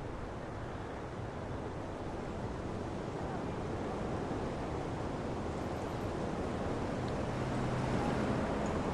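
Steady rushing noise that slowly grows louder.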